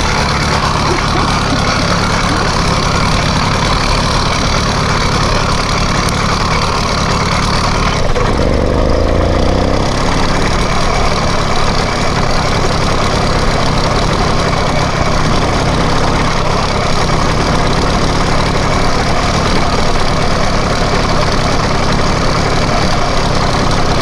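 YD-100 two-stroke motorized-bicycle engine running steadily, its note shifting briefly about eight seconds in.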